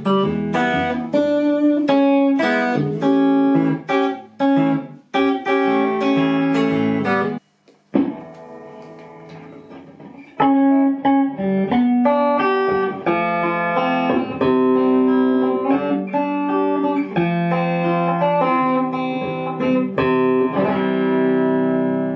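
Fender Stratocaster electric guitar played clean, picked notes and chords. It drops out briefly about seven and a half seconds in, comes back quietly, then picks up again and ends on a chord left to ring out.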